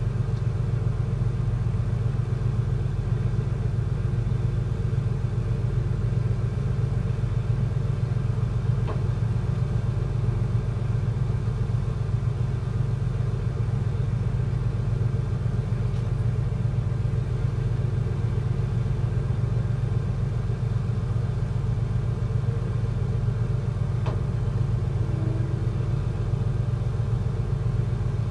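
Steady low rumble of a purse-seine fishing vessel's diesel engine as the ship steams out of harbour.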